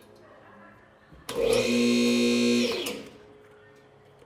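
A 110-volt two-post car lift's electric power unit motor runs briefly, a steady hum for about a second and a half, then winds down with a falling pitch as it stops. The owner says the lift has tripped itself, with a lifting cable loose on one side.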